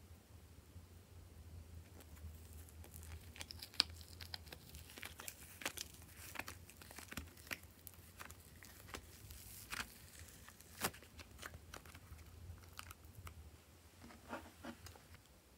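Faint, irregular crackling and crinkling with small sharp clicks as hands handle a clay-decorated ice-cream-cone piece and lay it in a glass bowl of slime.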